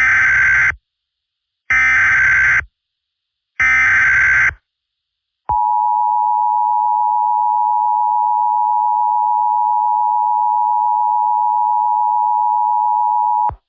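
Emergency Alert System tones opening an alert: three short bursts of digital SAME header data, each under a second with a pause between, then the steady two-tone EAS attention signal held for about eight seconds before cutting off.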